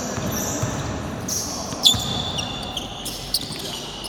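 Basketball game in a gym: sneakers squeaking sharply on the court floor several times, with thuds of the ball bouncing; the loudest squeak comes about two seconds in.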